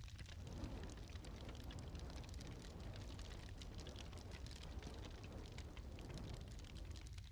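Wood fire crackling in a fireplace: many small pops and snaps over a low steady rumble. A soft rushing sound joins in just after the start and drops away near the end.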